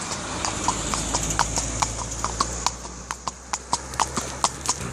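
A horse's hooves clip-clopping in an uneven walking rhythm, several sharp strikes a second, some with a short ring. Under them, a steady low rumble of wind on the microphone.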